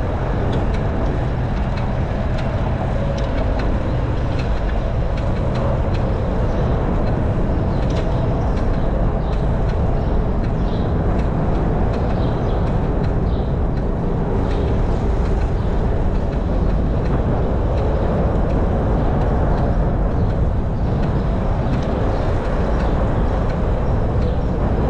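Steady wind rumble on the microphone and tyre noise from a Citi Bike being ridden along a paved bike path. The noise is loud, even and deepest in the low end, with no breaks.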